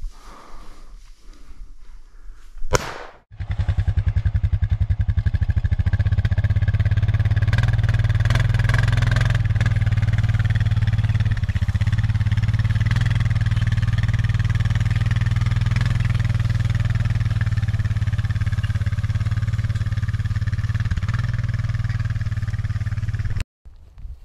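ATV engine running steadily, starting abruptly about three seconds in and cutting off shortly before the end. Before it there is a single sharp knock.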